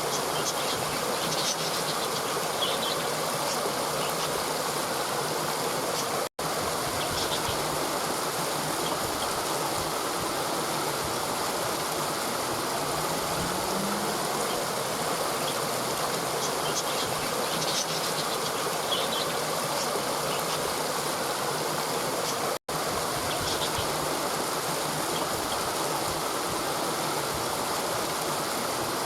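Steady rush of flowing river water over rocks, with a few faint high chirps now and then. The sound cuts out for an instant twice.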